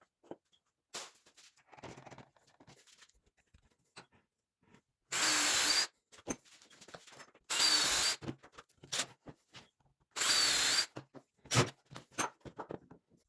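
Power drill run in three short bursts of under a second each, its motor whining up and down, with clicks and knocks of parts being handled in between.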